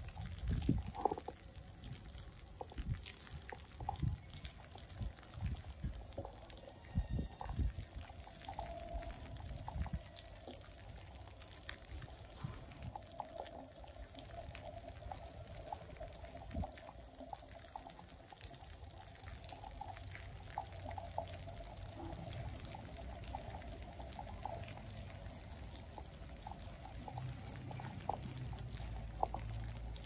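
Footsteps through wet snow and slush on a city sidewalk, with a car's tyres swishing through the slushy street and the low rumble growing over the last several seconds.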